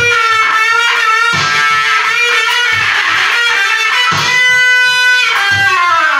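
Distorted electric guitar playing a blues lead: long sustained notes that bend in pitch, over a steady low beat. Near the end the notes slide down in pitch.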